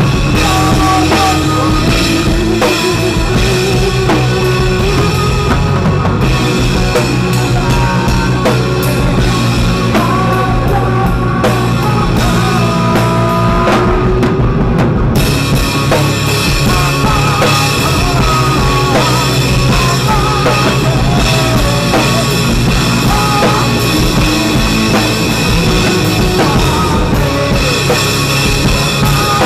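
Loud rock music with a full drum kit.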